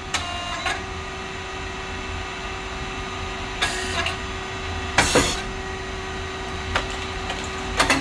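Rice cake popping machine running: a steady hum from its motor and hydraulic pump with one constant tone, a few mechanical clicks, and two short bursts of hiss about a second and a half apart midway through.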